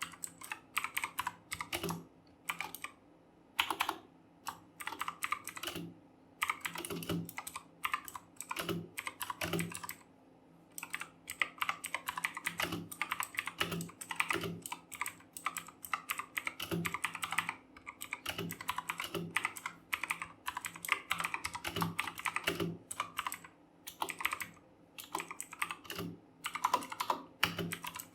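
Fast typing on a Redgear Chameleon mechanical keyboard with clicky Kailh Blue switches: rapid runs of sharp key clicks broken by brief pauses.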